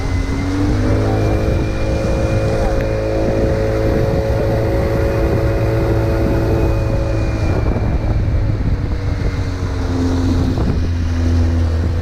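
Outboard motor on a fishing boat running under way, its pitch rising in the first second, holding steady, then dropping about seven seconds in. Wind rumbles on the microphone throughout.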